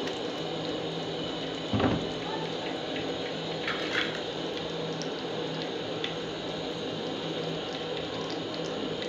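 Steady hiss of oil heating in a frying pan on the stove, with a knock about two seconds in and a few faint crackles around four seconds.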